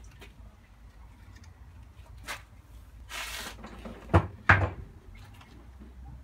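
Kickstarter of a 2002 Kawasaki KX85 two-stroke dirt bike being kicked through from cold: a short hiss, then two loud mechanical clunks about a third of a second apart a little past four seconds in. The engine does not catch.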